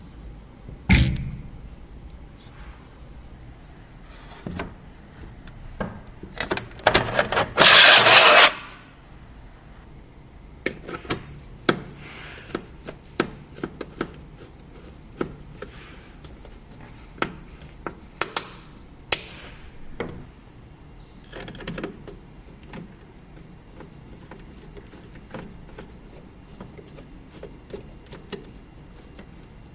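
Hands handling PC components during assembly: scattered small clicks and taps of parts being fitted. A loud rubbing scrape runs from about six and a half to eight and a half seconds in.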